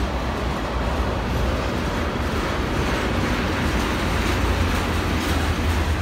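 Freight train of tank cars rolling past: a steady low rumble of wheels on rail, with no horn.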